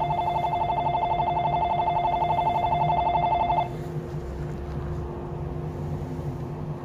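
An electronic station departure bell trills fast and evenly, then cuts off suddenly about three and a half seconds in. A steady hum continues underneath.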